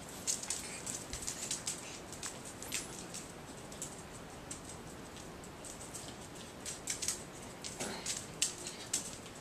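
Chihuahua puppies' claws clicking and pattering on a tiled floor as they scamper and play, in irregular flurries of quick light clicks.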